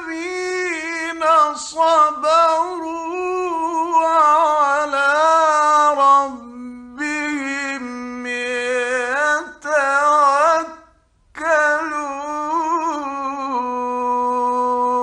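A male Quran reciter chanting in the melodic mujawwad style, drawing out long ornamented notes whose pitch wavers and slides. After a short breath break about eleven seconds in, he comes back and settles onto one long steady held note.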